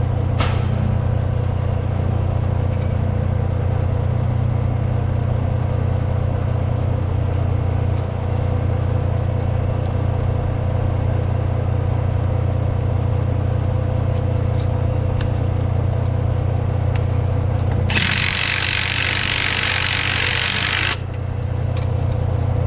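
A cordless impact wrench hammers for about three seconds near the end, driving a bolt on the truck's drive-axle torque bar. Under it runs a steady low engine hum, with a few light clicks of tools before.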